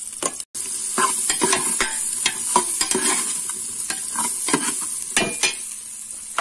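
Sliced smoked sausage and bacon sizzling in hot oil in an aluminium pressure cooker, with a steady high hiss, while a metal slotted skimmer stirs in the garlic, scraping and knocking against the pot many times. The sound drops out briefly about half a second in.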